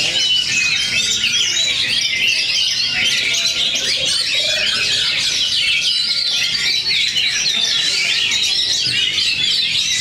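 Many caged oriental magpie-robins (kacer) singing at once in competition: a dense, continuous chorus of overlapping whistled and chattering phrases.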